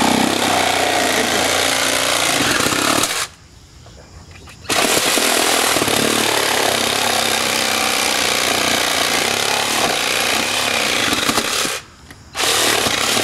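Reciprocating saw running, its blade cutting through the painted trim board to cut out rotted wood at the house's lower corner. It stops for about a second and a half about three seconds in, then again briefly near the end.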